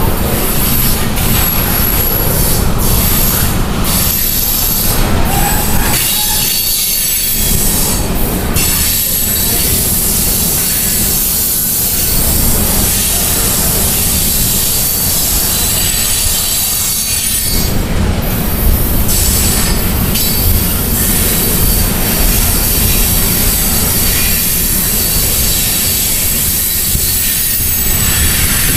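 Loaded coal hopper cars of a long freight train rolling slowly past, a steady heavy rumble of wheels on rail with thin high-pitched wheel squeal coming and going over it.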